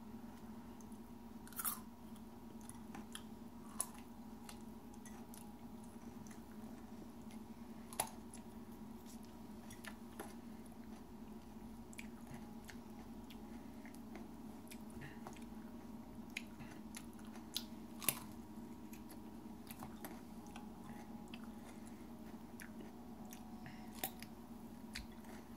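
A person biting into and chewing raw hot chilli peppers, with scattered sharp crunches and mouth clicks. A steady low hum runs underneath.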